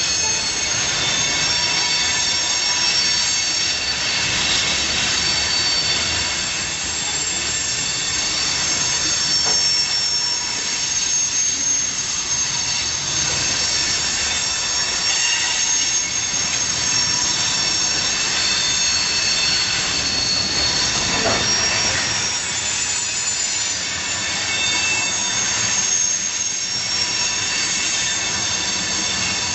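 Freight train wheels screeching on the rails with several steady high-pitched squeal tones over the rumble of the rolling cars, as the train goes over a switch.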